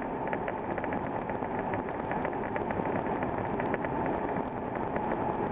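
Inside the cab of a 1987 Ford Ranger with the 2.9 L Cologne V6, driving along: steady engine and road noise.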